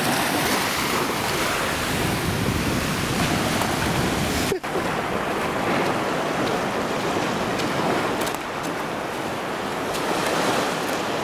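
Steady rush of ocean surf on a sandy beach, with a brief dropout about four and a half seconds in.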